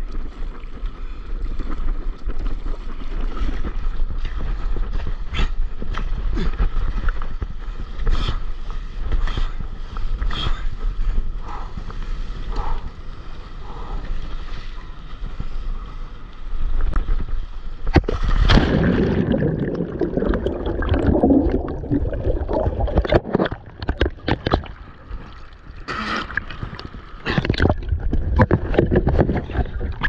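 Sea water sloshing and splashing around a stand-up paddleboard, with wind rumbling on the microphone. About eighteen seconds in the water grows louder and churning, with many sharp splashes.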